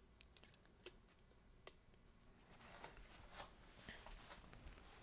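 Faint, sharp clicks of small tools and parts being handled on a camera's LCD display assembly, three in the first two seconds, then light scraping and rustling.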